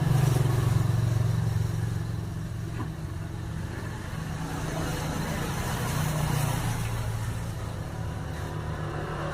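Refrigerator compressor running, a steady low hum that is loudest in the first couple of seconds, eases, then swells again about six seconds in. It is running on its freshly refilled oil.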